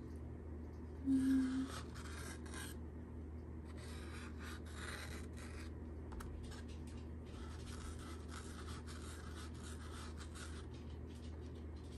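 Felt-tip marker scratching faintly on a paper plate in short strokes as small circles are drawn. A brief low hum sounds about a second in.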